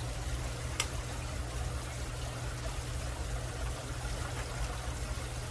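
Faint handling sounds of a metal measuring cup being packed with thick sweet potato puree, over a steady low hum, with one light click about a second in.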